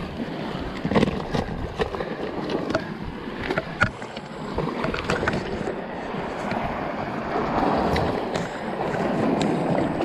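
Sea water washing and sloshing against rocks, swelling about seven seconds in, with sharp clicks scattered through.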